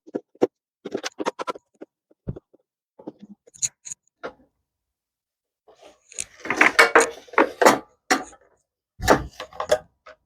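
Hand work on a Briggs and Stratton mower engine's shroud: short clicks and scrapes of a screwdriver backing out the Phillips screws, then a stretch of scraping and clattering as the shroud is worked loose, with two low thuds, one early and one near the end.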